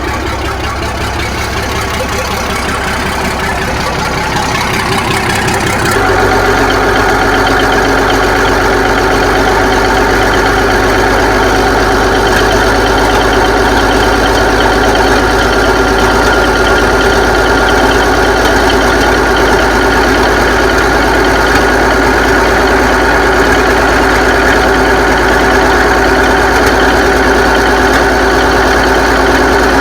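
1983 Kenworth K100 cabover's diesel engine idling soon after a hard cold start. About six seconds in it gets louder and settles into a steadier, higher note.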